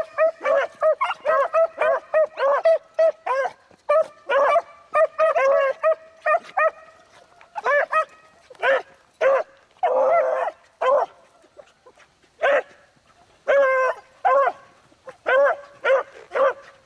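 Pack of beagles baying as they trail a rabbit's scent line, many short yelping calls overlapping. The calls come thick at first, then in scattered bursts through the rest.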